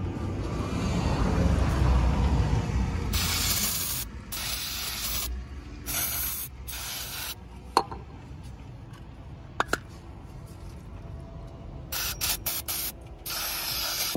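Aerosol throttle body cleaner sprayed onto a removed throttle body in bursts of hissing spray: four bursts in the middle, then a run of quick short spurts and a longer burst near the end. A low rumble comes before the spraying, and two sharp clicks fall between the bursts.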